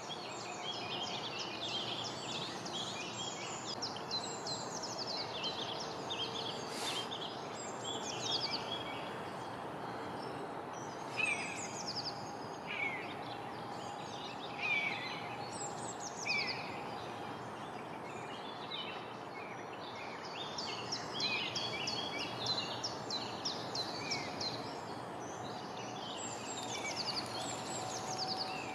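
Small songbirds singing and calling over a steady outdoor background hiss: many quick high chirps and falling whistled notes, thick for the first few seconds and again through the last third, with a few louder falling notes in between.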